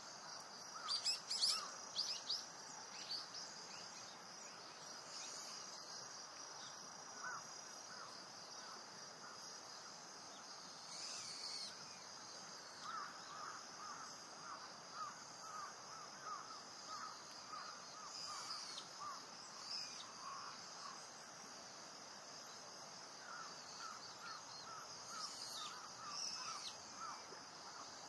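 Natural outdoor ambience: insects keep up a steady high-pitched drone. Birds call over it, with a loud burst of sharp calls about a second in and, later, two runs of quick repeated notes.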